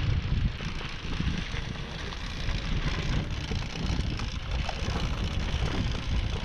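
Wind buffeting the microphone over the rolling noise of a Nanrobot Lightning electric scooter's wide tyres on a dirt-and-grass trail, a steady rumble that rises and falls with the bumps.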